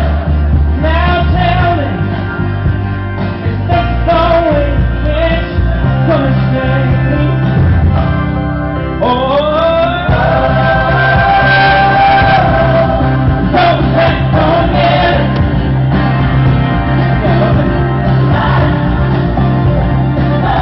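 Male singer performing a soft pop ballad with instrumental backing. About nine seconds in, the voice swoops up into a long held note that lasts about four seconds, and the music stops abruptly at the end.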